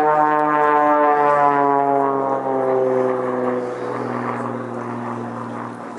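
Single-engine aerobatic plane's piston engine and propeller droning overhead. The pitch falls steadily and then levels off, and the sound fades as the plane pulls away.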